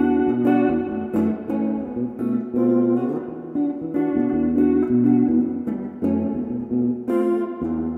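Instrumental outro music: plucked, guitar-like notes over a low bass line.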